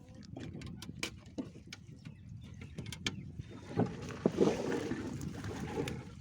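Water splashing and sloshing, growing louder and denser about three and a half seconds in, after a few light clicks.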